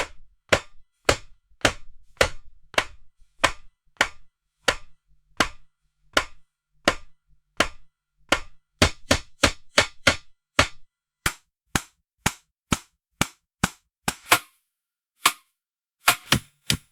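Kitchen knife chopping on a cutting board: a long run of sharp single chops, evenly spaced at under two a second at first, quickening to about three a second past the middle, then thinning out to a few spaced chops near the end.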